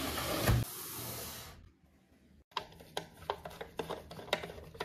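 Cardboard packaging sliding apart: a long rasping hiss of card rubbing on card, with a thump about half a second in. After a short gap comes a run of small irregular clicks and ticks as a screw is worked out of a plastic mounting bracket on a foam base.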